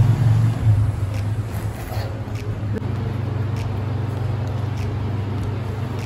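Steady low mechanical hum, a little louder at the start, with a few faint clicks.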